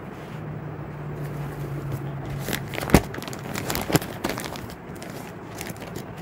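Clear plastic packaging on packed clothing suits crinkling and crackling as it is handled, with a few sharp clicks, the loudest about halfway through. A low steady hum sits under the first couple of seconds.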